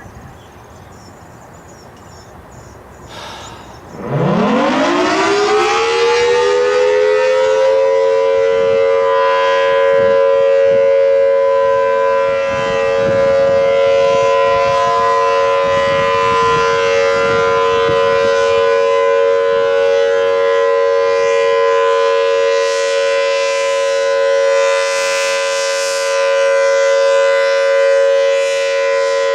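Federal Signal Thunderbolt 1000T civil defense siren, an early A2 unit with the larger 5M blower, starting up about four seconds in after a click. It winds up quickly in a rising sweep and settles within a few seconds into a loud, steady tone that holds.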